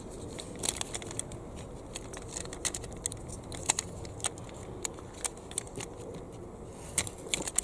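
Irregular small clicks and taps of hard plastic and metal as a small gearbox is pushed and shifted inside a toy tractor's plastic chassis by hand.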